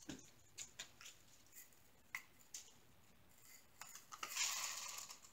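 Small plastic zip bags of diamond-painting resin drills being handled: scattered light clicks, then about four seconds in a rustle of plastic lasting about a second.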